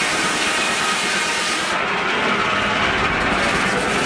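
Steam-powered circular sawmill running as the log carriage moves: a loud, steady hiss that loses its highest part about two seconds in, leaving the lower machinery noise.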